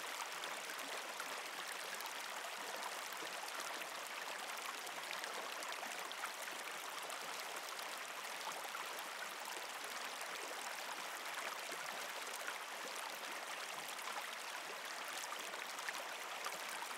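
Running water of a stream, a quiet, steady, even rush with no change.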